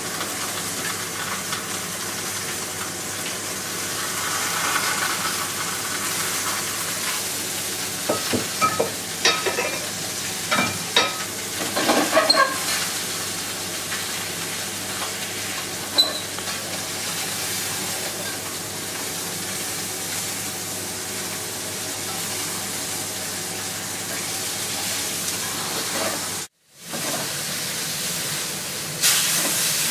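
Food sizzling as it fries in a stainless steel pan on a gas burner, a steady hiss. A run of metal clinks and scrapes from a utensil against the pans comes between about eight and thirteen seconds in, with one more clink a few seconds later.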